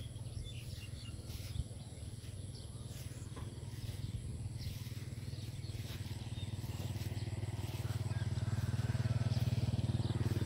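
A low, steady engine hum with a fast even pulse, growing louder from about six seconds in, with faint scattered ticks above it.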